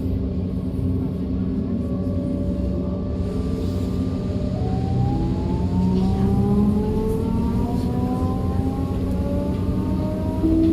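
DB class 425 electric multiple unit accelerating: its traction converters and motors give several whining tones that glide upward in repeated steps, clearer from about halfway through, over the steady rumble of the running train.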